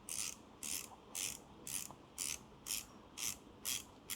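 Blade R3 manual coffee grinder's grind-adjustment mechanism clicking in short ratcheting bursts, about two a second, as the body is turned against the adjustment ring toward the coarsest setting.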